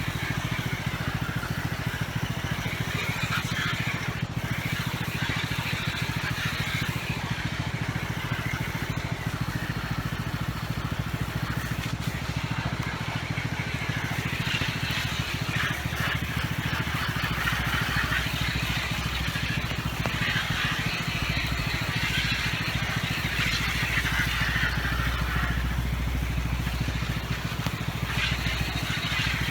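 An engine running steadily, with a low hum that holds throughout.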